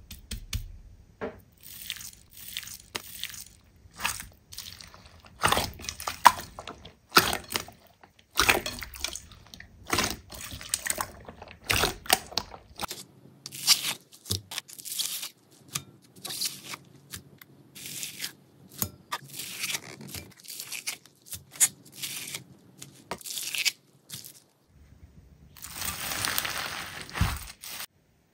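Slime being pressed and worked by hand, giving many short, irregular crackles and sticky pops. Near the end there is a longer rustling stretch of about two seconds.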